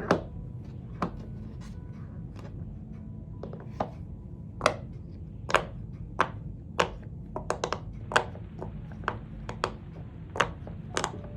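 Fidget toys being clicked and popped by hand: about twenty sharp clicks at uneven intervals, coming quicker around the middle, over a steady low background noise.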